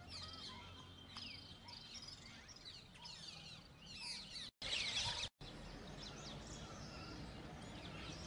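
Several small birds chirping and twittering in a busy chorus of quick, high chirps, densest a little past halfway. The sound cuts out briefly twice near the middle.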